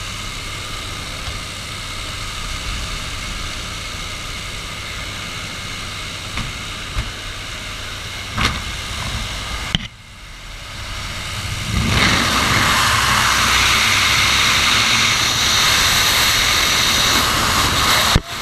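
Steady drone of a light single-engine airplane's engine and propeller, with wind rushing past the open jump door. About ten seconds in the sound dips briefly, then a much louder rush of wind builds and holds as the jumper is out on the wing strut in the slipstream.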